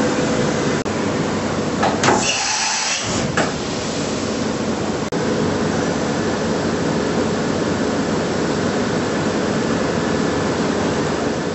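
Doosan DNM 650 vertical machining centre running: a loud, steady mechanical noise with a faint hum, broken about two seconds in by a brief loud hiss lasting about a second.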